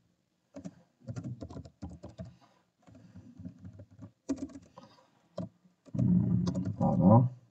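Computer keyboard being typed on: a run of quick, irregular key clicks, with a louder stretch near the end.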